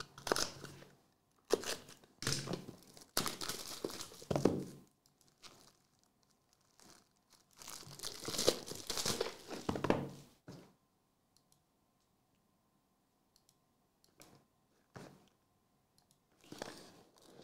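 Plastic shrink wrap being torn and crinkled off a sealed trading-card box, in several rustling bursts over the first ten seconds or so, then only a few faint taps.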